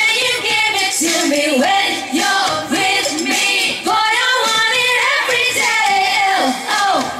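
Four women singing a pop song together into microphones, amplified through PA speakers, with several voices at once.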